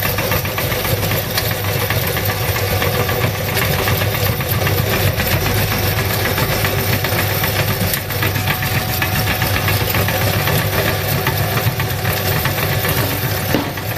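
Motor-driven meat grinder running steadily while grinding maggots, a constant low hum under a dense rattling churn.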